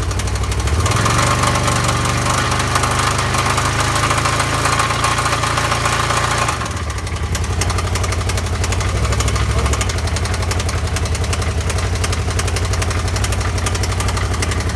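Can-Am Spyder engine running with a loud knocking noise of unknown cause. About a second in it is revved and held for several seconds, then drops back to idle, with a second, shorter rev a little later.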